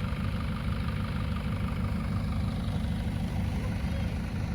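A four-wheel drive's engine running steadily at low revs, a low even rumble.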